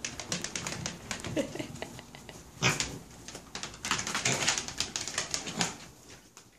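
Mini pig's trotters clicking quickly and unevenly on a hardwood floor as it walks and trots, with a few short grunts. The clicking fades out near the end.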